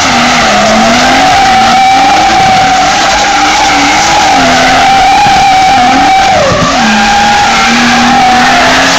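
Drift car sliding sideways with its rear tyres squealing in one steady high tone while the engine is held at high revs that rise and fall with the throttle. Very loud. The squeal and the revs dip briefly about two-thirds of the way through, then pick straight back up.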